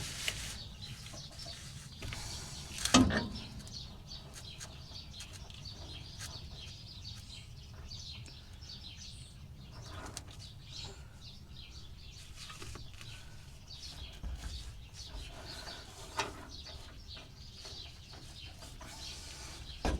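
Birds chirping and calling in the background, with a sharp knock about three seconds in and a couple of lighter knocks later from hand tools and parts during rear shock work on a pickup.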